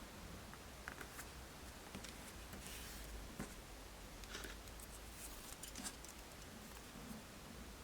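Faint handling noises from small craft work: scattered light clicks and taps with a few short rustles or snips, about 3 seconds in and again about 5 to 6 seconds in.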